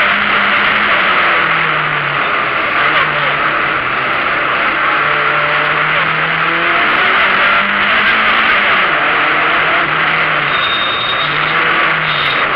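Opel Ascona A rally car's engine running hard, heard from inside the cabin, its revs rising and falling several times. Loud road and wind noise runs over it.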